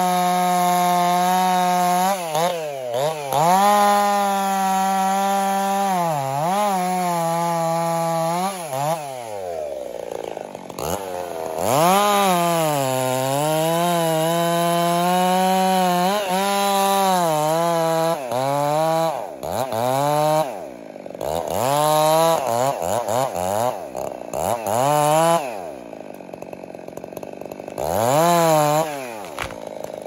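Two-stroke chainsaw making a felling cut through a standing tree trunk: the engine runs at full throttle under load, sagging and picking up again as the bar works the cut, easing off briefly about ten seconds in, then cutting again. In the second half it revs up and drops back in a quick run of short bursts as the cut is finished.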